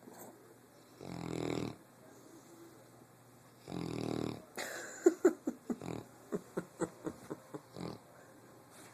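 Dog snoring in its sleep: two long snores about two and a half seconds apart, then a rapid run of short, sharp sounds that slows and fades out towards the end.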